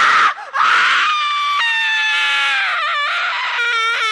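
High-pitched screaming: a harsh scream, a brief break, then a long drawn-out wailing cry that slowly sinks in pitch, with a short wobble near the end.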